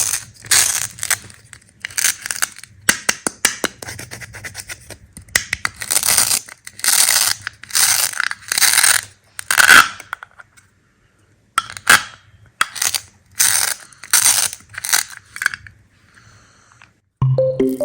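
Candy being cut with a knife: a run of crisp, crunchy scraping strokes, roughly one a second, with a short pause a little past halfway. Music comes in near the end.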